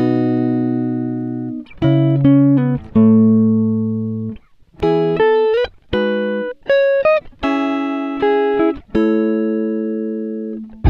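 Background music: slow plucked notes and chords, each struck and left to ring and fade before the next.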